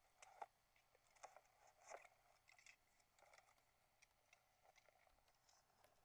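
Faint handling noise of a camera being carried: scattered small clicks, light knocks and rustles, the loudest about half a second and two seconds in.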